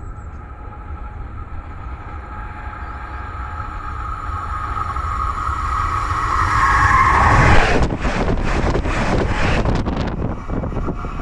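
Steel rails singing: a ringing hum of a few steady tones that grows louder as a train approaches. About eight seconds in, the train runs over the microphone between the rails with a loud rush and rapid wheel clatter, which after a couple of seconds eases into a lower rumble.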